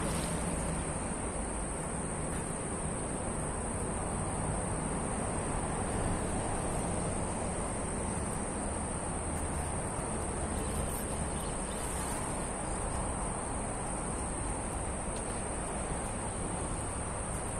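A steady high-pitched insect drone over a constant low rushing background of outdoor noise.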